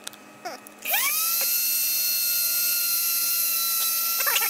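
Dremel variable-speed rotary tool switched on about a second in, spinning up with a quick rising whine and then running at a steady high pitch. A few light clicks near the end.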